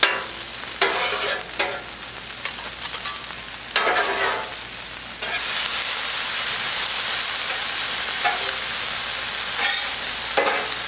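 Diced onion, garlic and frozen peas and carrots sizzling in avocado oil on a Blackstone flat-top griddle at full heat, with metal spatulas scraping and turning them on the steel now and then. The sizzle grows suddenly louder about halfway through, as the pile of vegetables is spread out across the hot griddle.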